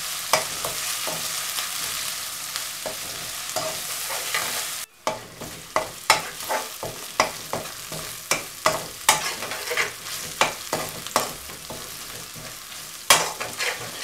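Crushed ginger, garlic and pepper with curry leaves sizzling in hot oil in a metal kadai, stirred with a metal spatula that clinks and scrapes against the pan. The sizzle drops suddenly about five seconds in, leaving a quieter sizzle under the spatula's strikes, about one or two a second.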